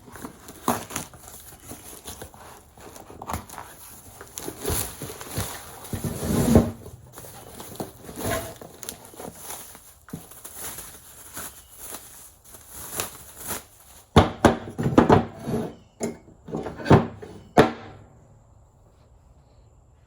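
Irregular knocks and clatter, with a quick run of sharp knocks a few seconds before the end, then it falls nearly quiet.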